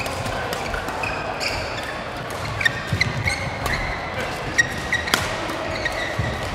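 Badminton doubles rally: rackets striking the shuttlecock in quick exchanges, the sharpest hits a few tenths of a second apart a little past halfway, with sneakers squeaking on the court mat.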